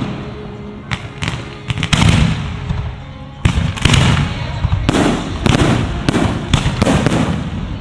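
Aerial fireworks shells bursting in quick succession, about a dozen sharp bangs, each trailing off in a short rumbling echo.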